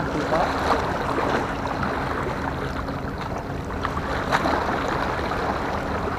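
Steady wind and sea-water noise on the microphone. A low steady hum runs through the first half, and there is a single light knock about four seconds in.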